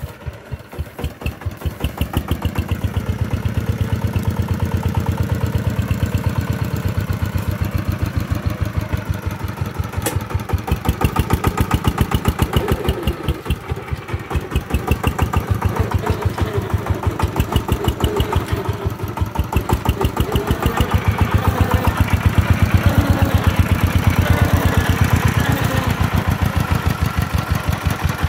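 Single-cylinder diesel engine of a công nông three-wheeled farm truck running with a rapid, even beat of firing strokes. It swells and eases in loudness, loudest near the end.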